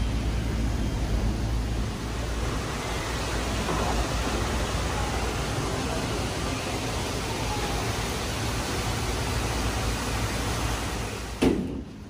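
Steady background noise, traffic-like with a low rumble at first, with faint voices in it; a single sharp thump near the end, after which it quietens.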